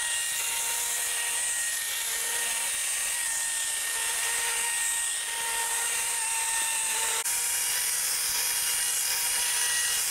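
Chainsaw cutting a groove into ice, its engine held at steady high revs with a brief dip about seven seconds in.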